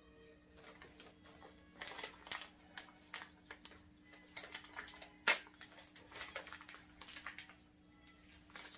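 Shop-vac wheels, axle and small hardware being handled: a string of light clicks and rattles, with one sharper click about five seconds in.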